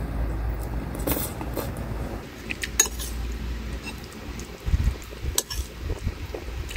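Metal spoon scraping and clinking against a ceramic plate while scooping fried tofu, with a few short sharp clinks.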